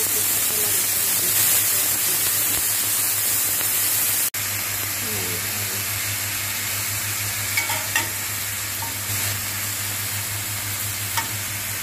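Bacon strips sizzling in hot olive oil in a stainless frying pan, stirred with a metal slotted spatula that gives a few light taps against the pan. The sizzle breaks off for an instant a little over four seconds in.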